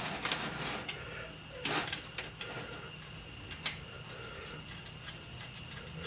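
Scattered light clicks and taps of metal bolts being handled and run in by hand on a tractor's hydraulic filter cover, with one sharper click about three and a half seconds in, over a faint steady hum.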